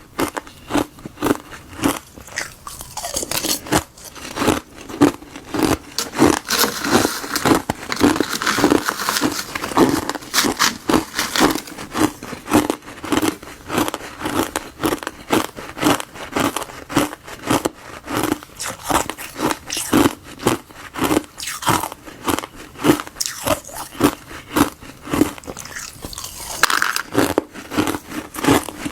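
Someone biting and chewing crunchy granules of frozen tartary buckwheat and gardenia tea close to the microphone, a steady run of crisp crunches, one or two a second.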